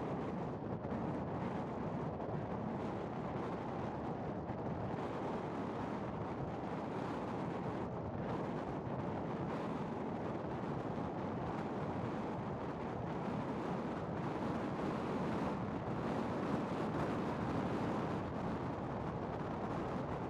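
Wind buffeting the microphone: a steady rumbling rush.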